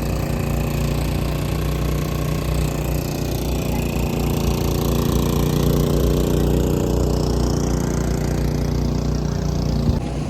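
A small engine running steadily at an even pitch, beginning and cutting off abruptly.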